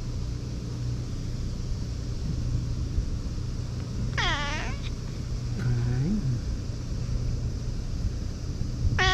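White cat meowing: one long meow about four seconds in, a lower, shorter call a second later, and another starting at the very end, over a steady low hum.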